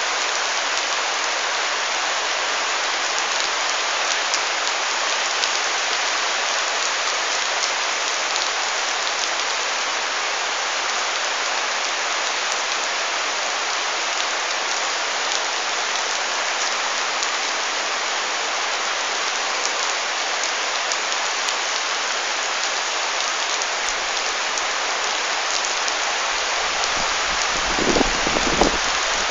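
Heavy rain falling steadily on trees and leafy garden plants: an even, unbroken hiss of downpour. A few low thumps break in near the end.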